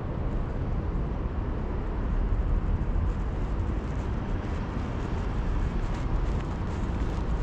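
Steady low rumble of outdoor street ambience, with no single event standing out.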